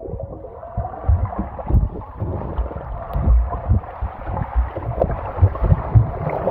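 Muffled swimming-pool water heard underwater: gurgling and sloshing with irregular low thumps, the high end cut off.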